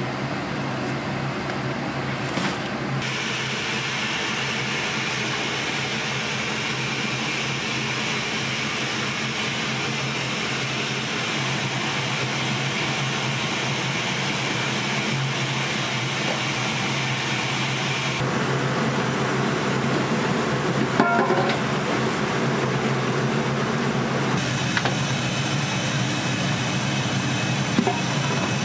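Steady hum of a kitchen ventilation fan amid cooking noise. A hiss switches on about three seconds in and cuts off sharply around eighteen seconds, then returns near the end. A few clinks come around twenty-one seconds.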